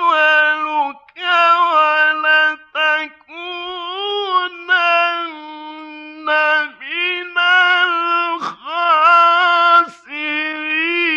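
Male Quran reciter chanting in the melodic mujawwad style, holding long, high notes with ornamented turns of pitch, broken by short breaths between phrases.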